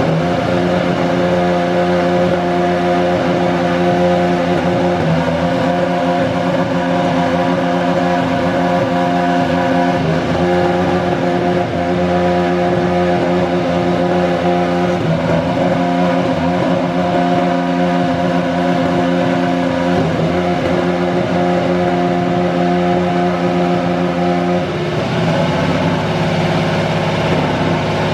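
Honda RA618H turbocharged V6 in a Toro Rosso STR13 Formula 1 car running at a steady raised warm-up idle, with brief small dips in engine speed. About three-quarters of the way in the note shifts lower and rougher.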